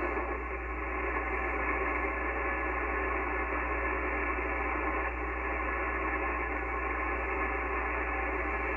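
Icom IC-7300 HF transceiver receiving on the 20-meter band while no station is transmitting: a steady hiss of band noise from its speaker, with a low hum underneath.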